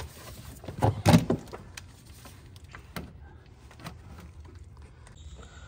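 Plastic air filter housing lid of a Honda Pilot being pried loose and lifted off: a cluster of loud plastic clunks and knocks about a second in, then a few lighter clicks.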